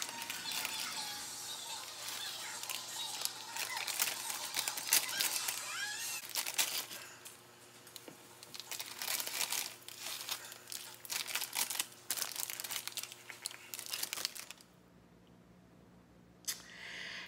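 Plastic instant-noodle packets crinkling and tearing as they are handled and opened, in quick irregular rustles. The sound stops about three seconds before the end.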